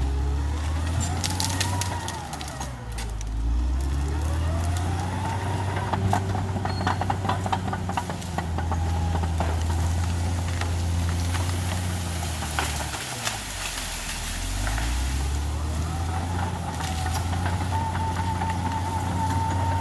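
Caterpillar D6R XL bulldozer's diesel engine running under load, its pitch rising and falling several times as the machine pushes and backs off. About five to eight seconds in there is a run of sharp clicks and rattles.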